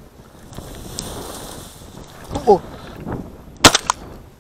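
Rustling of dry weeds and grass, then a single loud shotgun shot about three and a half seconds in, fired at a running hare just flushed from cover. A short call is heard shortly before the shot.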